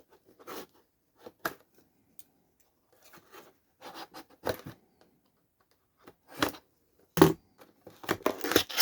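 Cardboard box being opened by hand: a string of short, separate tearing and rustling noises, getting louder and busier near the end.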